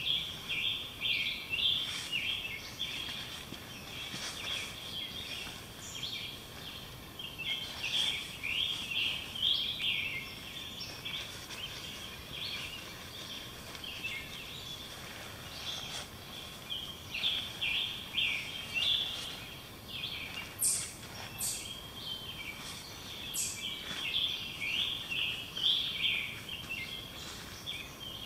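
Forest songbirds singing, with short chirping phrases repeating over a steady background hiss. A few sharp clicks come in about two-thirds of the way through.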